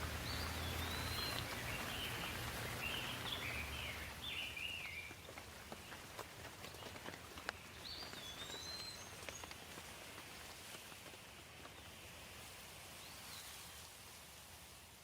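Steady rain falling, with songbirds chirping: a run of quick chirps and trills in the first few seconds, then a few single calls later on. The rain is a little quieter after about four seconds.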